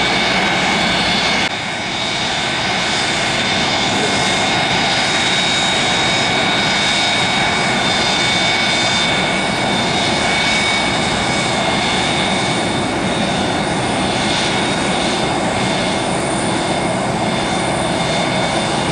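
Jet engines of a Boeing 727-200 freighter, its three Pratt & Whitney JT8D turbofans, running loud and steady with a high whine over the rumble. The sound drops slightly in loudness about a second and a half in.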